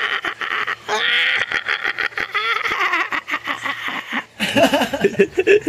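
People laughing in a long run of quick voiced bursts, followed near the end by a man speaking.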